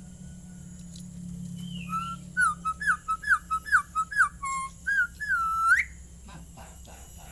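A quick run of about nine short whistled notes, each sliding down and back up, ending in one longer note that rises sharply at its end.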